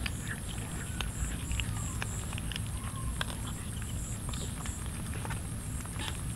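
A group of cats and kittens eating rice together: an irregular patter of small wet clicks and smacks from chewing and licking, over a steady low rumble.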